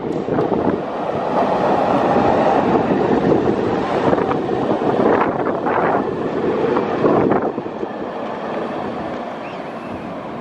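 Tatra T4-type two-car trams passing close on street track: steel wheels running on the rails, with a run of sharp clicks over the rail joints in the middle, fading as the tram pulls away over the last few seconds.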